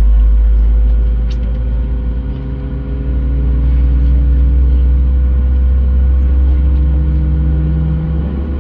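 Cabin noise inside a Boeing 737-700 being pushed back: a steady low rumble with a constant hum, and a deeper tone that slowly rises in pitch.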